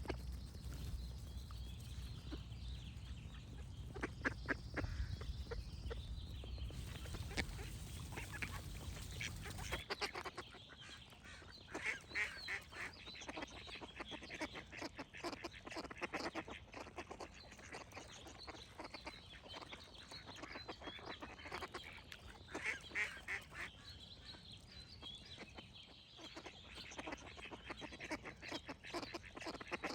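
Ducks quacking in repeated runs of short calls, with birds singing. A low rumble under the first part cuts off abruptly about ten seconds in.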